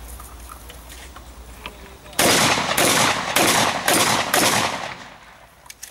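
Five gunshots in quick succession, about half a second apart, each trailing off briefly, from a competitor firing through a practical shooting stage.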